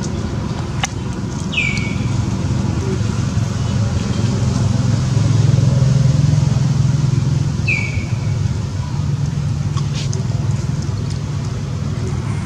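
A motor vehicle engine running steadily, growing louder around the middle and then easing off. Twice, a short high chirp falls quickly in pitch.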